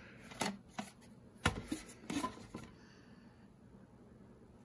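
VHS tape in its cardboard sleeve being handled and turned over: several soft taps and scrapes of card against fingers over the first three seconds or so.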